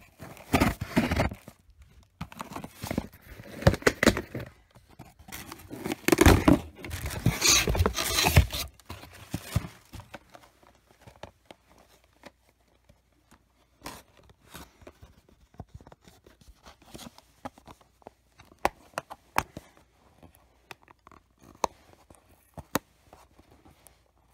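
Packaging on a small mystery-figure box being torn open by hand, several loud ripping and crinkling bursts over the first nine seconds or so, followed by scattered light clicks and taps as the box is handled.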